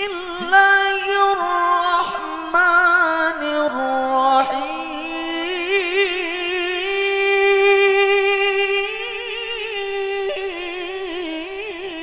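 A man recites the Quran in the melodic tilawah style, amplified through a microphone. It is one long, unbroken sung phrase of held notes with wavering melismatic ornaments, trailing off near the end.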